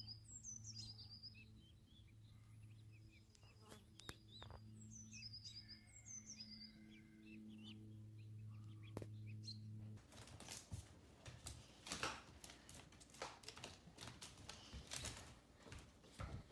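Faint bird chirps, a few short high calls falling in pitch, over a low steady hum. About ten seconds in the hum stops and scattered faint clicks and taps follow.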